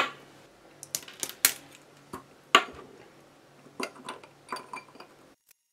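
Irregular small clicks and taps as a cable-tied bundle of three electrolytic capacitors is handled and fitted into an old aluminium multi-capacitor can. The sharpest click comes about two and a half seconds in, and the sound cuts off suddenly near the end.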